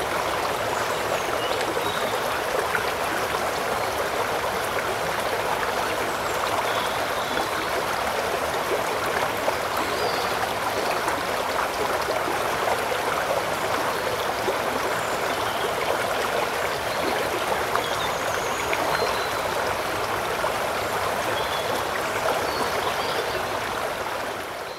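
Steady rush and ripple of a flowing river, fading out at the very end.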